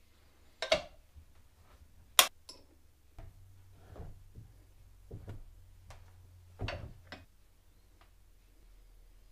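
Scattered metallic clicks and knocks from a Honda SL125 front wheel hub being handled and worked on a hand-lever arbor press while new wheel bearings are pressed in. A sharp click about two seconds in is the loudest, with softer knocks following every second or so.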